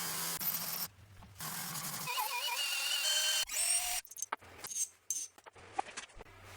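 A wire brush scrubbing heavy rust off metal parts, heard as a scratchy hiss in short stretches broken by cuts. Scattered clicks and light knocks of the parts come near the end.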